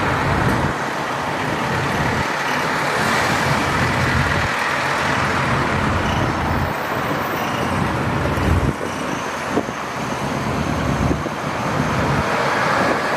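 Classic cars' engines running as they drive past, mixed with street traffic noise.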